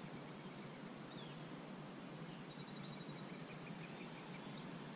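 Faint outdoor field ambience with a few short high bird chirps, and about four seconds in a quick run of high ticking notes, roughly ten a second. No motor sound is heard.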